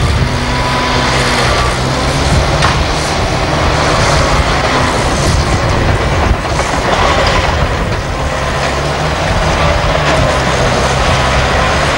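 Diesel engine of a Volvo BM A25B articulated dump truck running loudly and steadily as it drives across the site, with a few faint knocks.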